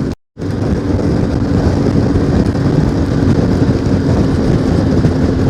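CFMOTO 450MT's parallel-twin engine running steadily at cruising speed, with a constant drone and rushing wind and road noise. About a quarter second in, the sound cuts out completely for a moment, then resumes.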